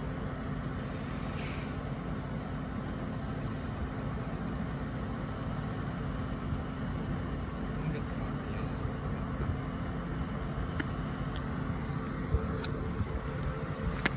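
Steady low engine hum of the Moggill vehicle ferry as it crosses the river toward the ramp, with a few light clicks near the end.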